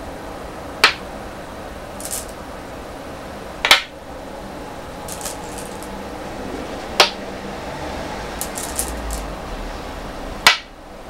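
Go stones snapped down one at a time onto a wooden go board, four sharp clicks a few seconds apart. Between them, the faint clatter of stones being picked from the bowls.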